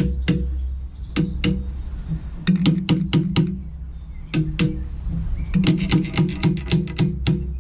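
Hammer blows driving a steel wedge into a post leg vice, in bursts of several quick ringing strikes about four or five a second, with a low steady hum underneath.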